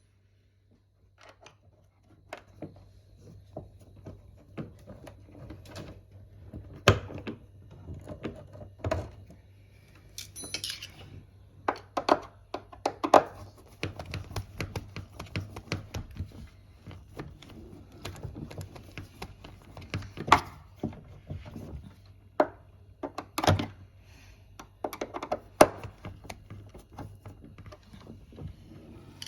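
Irregular knocks, clicks and thunks of hands working on hardware, the loudest a handful of sharp knocks spread through, over a steady low hum.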